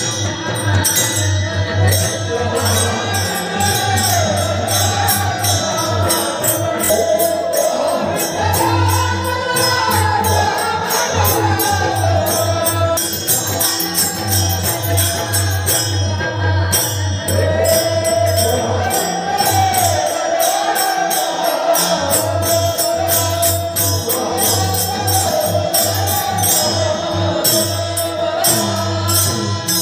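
Live devotional song played through a large PA system: a singing voice over fast, steady jingling percussion and a pulsing low beat.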